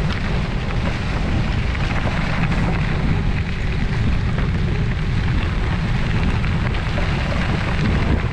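Wind buffeting the microphone of a camera moving along with a bicycle ride: a steady low rumble with an even hiss of rolling noise over it.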